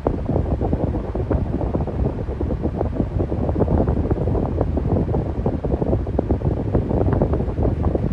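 Electric fan running steadily: a low whoosh of moving air with a quick, irregular flutter.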